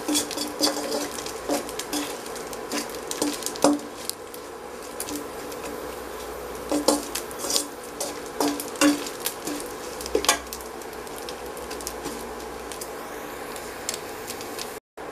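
A slotted metal spatula scraping and clinking against a stainless steel pan as dried anchovies are stirred in hot oil, over a steady sizzle of frying. The anchovies have been fried to a crisp stage. The stirring comes in two spells, the second ending after about ten seconds, and then only the sizzle goes on.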